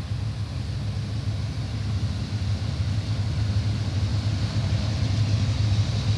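Diesel locomotives at the head of a double-stack freight train approaching, a steady low engine rumble that grows gradually louder as they come closer.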